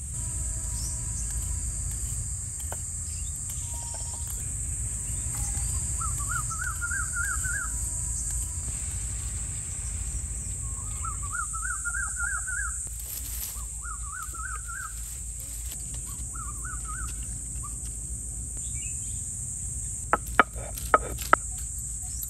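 Outdoor rural ambience with a steady high insect buzz and a low rumble. A bird sings in several short, rapid warbling phrases. Near the end come four sharp knocks.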